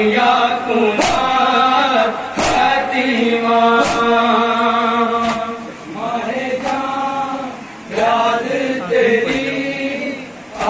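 A group of men chanting an Urdu noha (Shia lament) in unison, with sharp chest-beating (matam) strokes landing about once every 1.4 seconds, weaker in the second half.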